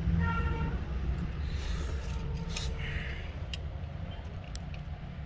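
Steady low rumble of road traffic, with a short horn toot right at the start and a few faint clicks.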